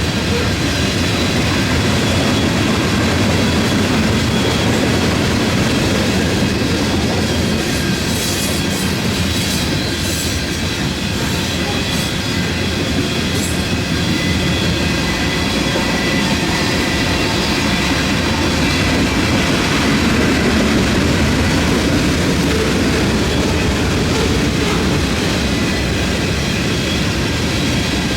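Freight train rolling past with a steady rumble of wheels on rail, and a few short high wheel squeals about a third of the way in.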